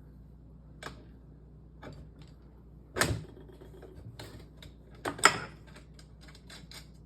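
Metal clicks and knocks of an adjustable wrench working the bolts on a wheelchair frame: scattered clicks, two louder knocks about three and five seconds in, then a quick run of clicks near the end.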